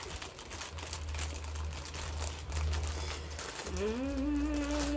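Plastic cracker packets crinkling as hands rummage in them. About four seconds in, a person with a mouth full of dry crackers starts a long hummed note that rises, then holds steady.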